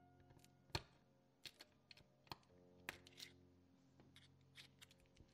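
Light clicks and taps from a plastic pry tool and parts being handled on an opened iPad, the sharpest about a second in, followed by several smaller ones. Soft background music with held notes runs underneath.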